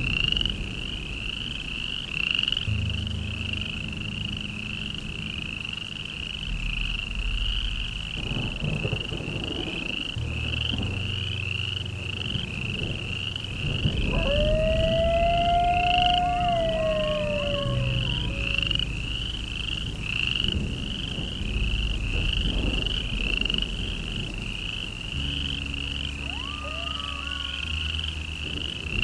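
Night ambience: a steady chorus of pulsing calls, about three a second, over a low drone, with a long rising-then-falling howl about halfway through and a shorter call near the end.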